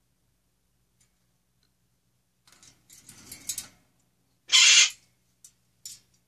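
A pet bird gives one short, harsh, loud squawk about four and a half seconds in. Before it comes about a second of softer scraping and clicking, and a couple of faint clicks follow.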